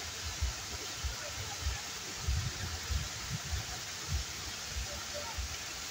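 Waterfall rushing in a steady, even wash of water noise, with irregular low thumps underneath.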